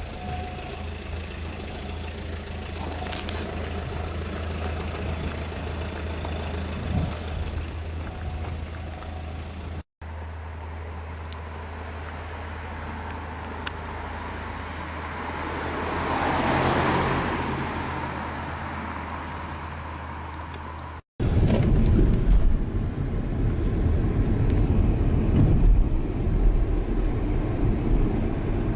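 Car driving: steady low engine and road hum. Midway a rushing noise swells and fades, like a vehicle passing, and in the last part the road rumble is louder and rougher. The sound breaks off twice for an instant.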